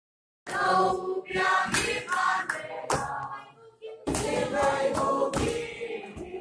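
A classroom group of teenage students singing a devotional chorus together, clapping their hands along with the song. The singing starts about half a second in and eases briefly past the middle before picking up again.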